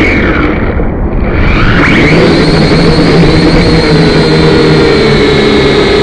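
Syma X5C quadcopter's small electric motors and propellers whining loudly, heard through its onboard camera. The pitch dips about half a second in and climbs back up by about two seconds in, then holds steady.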